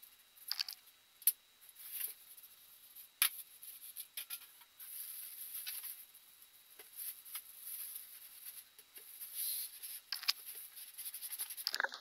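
Plastic wrapping crinkling and cardboard rustling as a tower space heater is pulled up out of its shipping box, with scattered light knocks against the box.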